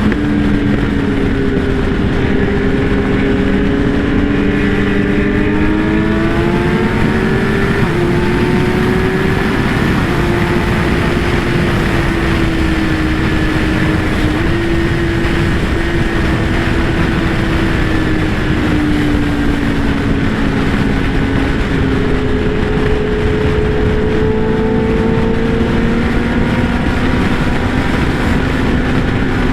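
Kawasaki ZX-10R's inline-four engine running at a steady road speed, its pitch rising and falling gently over several seconds as the throttle changes, under a heavy rush of wind on the microphone.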